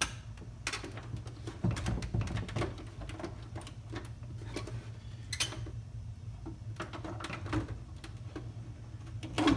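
Hard plastic headlight lens and housing clicking and tapping irregularly as the lens is handled and lined up on the housing, over a steady low hum.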